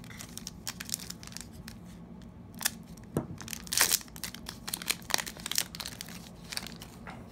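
Upper Deck hockey-card foil pack crinkled and torn open by hand: a run of irregular crackles, with the loudest tearing about four seconds in.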